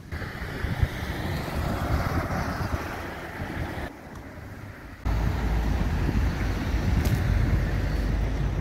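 Wind buffeting the microphone outdoors over a steady rushing noise. It drops away about four seconds in, then cuts back in about five seconds in as a heavier, deeper rumble.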